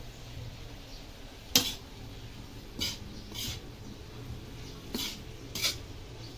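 Metal spatula scraping and clanking against a large steel wok while tossing stir-fried bean sprouts and sweet potato. About five strikes, the loudest about one and a half seconds in.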